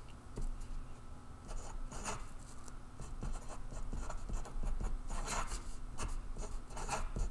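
Pen writing on paper: a run of short strokes as letters are written, circled and joined by connecting lines.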